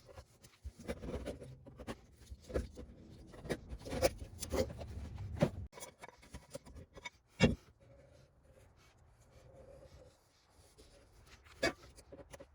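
Hand work on small metal parts: irregular scraping and rubbing with light clicks, and one sharp knock about halfway through.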